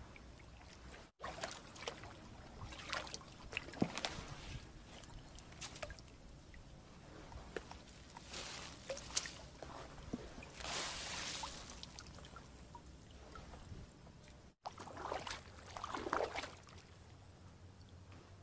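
Kayak paddle strokes in calm water: irregular splashes and swishes as the blade dips, with trickling and dripping water between strokes. The sound drops out abruptly twice.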